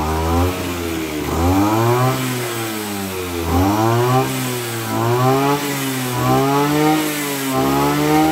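Kawasaki TA33 brush cutter's 33 cc two-stroke engine being revved up and dropped back about six times in a row, each rev rising and falling within about a second.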